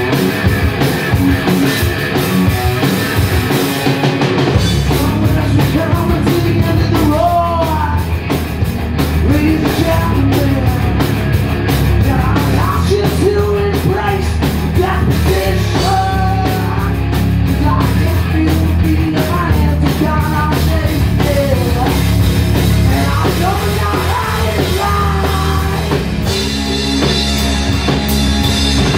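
Live rock band playing electric guitar, bass guitar and drum kit through amplifiers. The low end fills in about four seconds in, and a sung vocal joins about seven seconds in.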